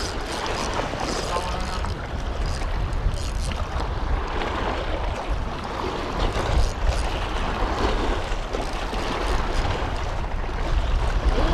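Wind buffeting the microphone in uneven gusts, over choppy lake water washing against the shore rocks.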